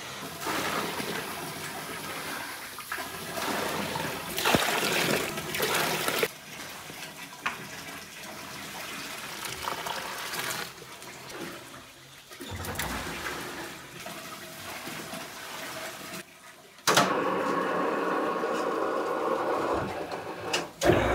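Water poured in a stream from a bucket into a large bowl of flour, gushing and splashing. In the last few seconds a steady machine sound, from the belt-driven dough mixer, takes over and is louder.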